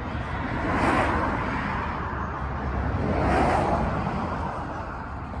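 Vehicles driving past, each a rush of engine and tyre noise that swells and fades, about a second in and again after about three seconds, over a low steady rumble.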